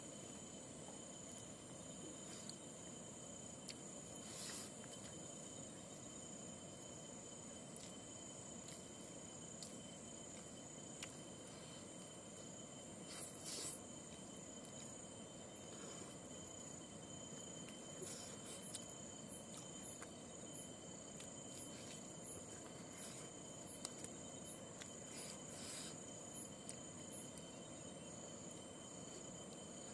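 Insects chirring steadily and high-pitched in the surrounding vegetation, with a few brief faint smacks of chewing now and then.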